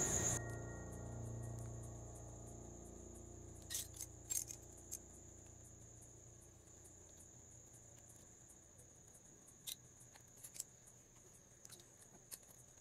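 Faint scattered clicks of small aluminium bottle caps being handled and tapped as melted candle wax is poured into them, about half a dozen in all. A steady, thin, high-pitched tone runs underneath.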